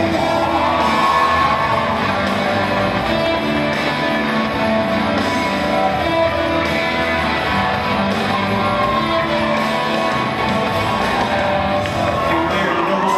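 Loud recorded music with guitar, played for a dance routine and ringing in a large gymnasium.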